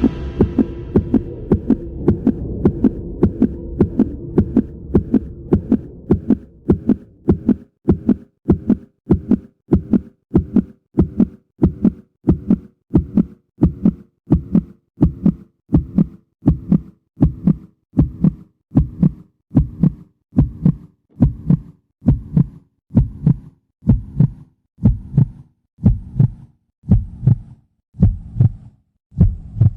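A regular series of low, short thumps, a little over one a second and slowing slightly toward the end, over a low hum that fades away in the first several seconds.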